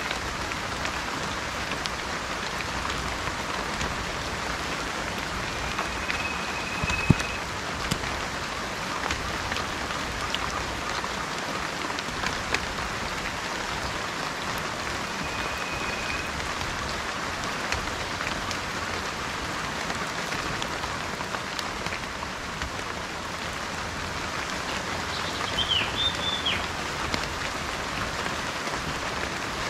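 Steady rain falling, with many small drop ticks through it. A bird whistles a short, steady note twice and gives a brief call near the end, and one sharp drip sounds about seven seconds in.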